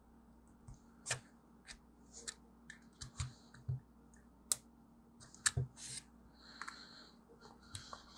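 Small metal screwdriver prying at the seam of an original iPhone's case: irregular light clicks and short scrapes of metal against the casing, about ten in all.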